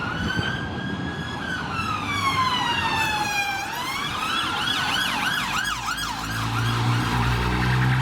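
Emergency vehicle siren: a slow wail that rises and then falls, switching about three seconds in to a fast repeating yelp. A low steady hum comes in near the end.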